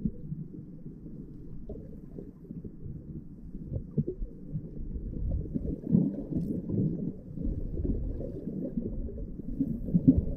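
Muffled underwater rumble of flowing river water, with scattered knocks, heard below the surface; it grows louder about halfway through.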